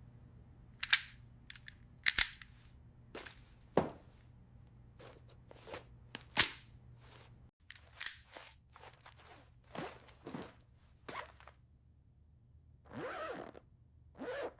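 A series of sharp, irregularly spaced clicks and snaps, about a dozen, as equipment is handled while gear is readied.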